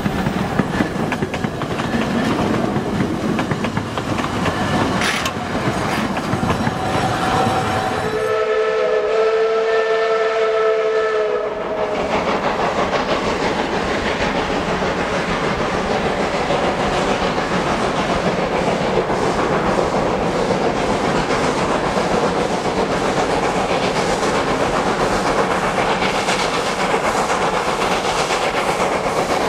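Steam locomotive working, a loud steady rushing noise of the running train. About eight seconds in, its steam whistle blows once, a chord of several steady tones held for about three and a half seconds.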